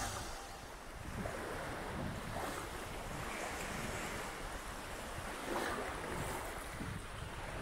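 Small lake waves lapping and washing on a sandy beach, with wind buffeting the microphone.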